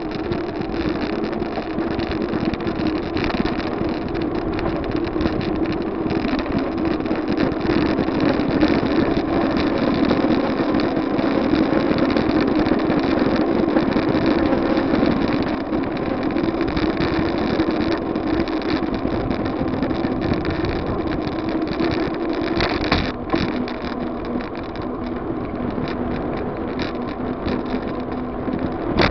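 Wind buffeting the microphone of a bike-mounted camera while cycling, a steady rushing noise with many small knocks and rattles from the ride. It eases a little about three-quarters of the way through.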